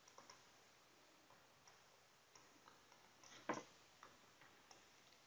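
Near silence with a few faint, short clicks of a stylus on a tablet during handwriting, the clearest about three and a half seconds in.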